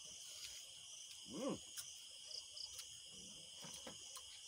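Steady high-pitched chorus of crickets at night, with one short vocal sound rising and falling in pitch about a second and a half in, and fainter ones a couple of seconds later.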